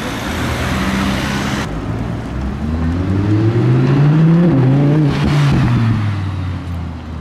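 Audi R8's 5.2-litre V10 pulling away, its engine note rising through the revs with a brief dip partway, then falling as the car drives past, over city traffic noise.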